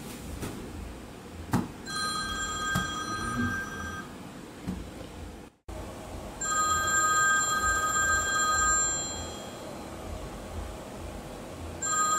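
A telephone ringing: a steady, bright multi-tone ring in bursts of two to three seconds with pauses between, three rings in all, the last starting near the end.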